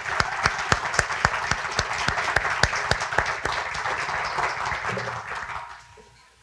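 Audience applauding, with one person's claps close and sharp above the rest at about four a second; the applause dies away shortly before the end.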